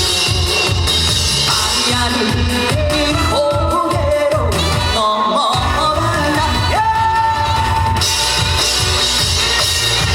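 A male singer performs a Korean trot song live over a loud amplified backing track with a steady drum beat. A long note is held for about a second, roughly two-thirds of the way through.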